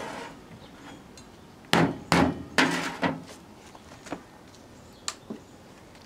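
Three sharp knocks close together about two seconds in, then a few light clicks: the melted string of lights and a metal spatula are handled and knocked against a wooden tabletop.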